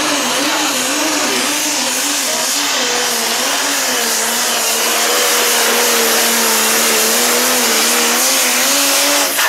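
Pro Stock pulling tractor's turbocharged diesel engine running flat out under the load of the pulling sled, a loud steady note whose pitch wavers slightly as it drives down the track.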